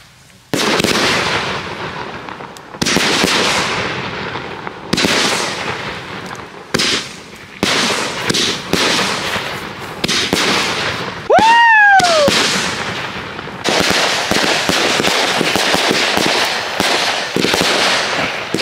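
Yggdrasil Z consumer fireworks fan battery firing. It gives a series of sudden sharp shots, each fading into crackle. About eleven seconds in there is a short whistle that rises and then falls, and from about fourteen seconds on there is dense crackling.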